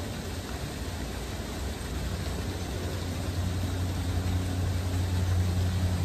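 A low, steady engine hum that grows louder in the second half, over an even background hiss.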